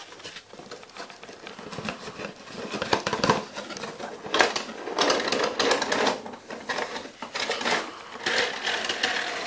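Cardboard box being handled and opened, its flaps bent back and a boxed twig tree slid out of it, giving irregular rustling and scraping with small knocks and clicks.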